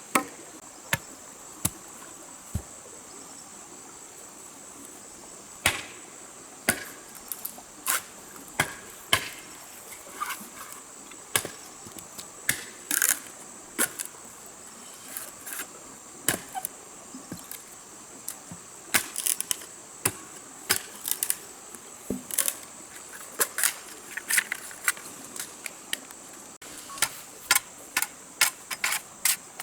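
Irregular sharp knocks and taps, like hand-tool work on wood, over a steady high-pitched insect drone.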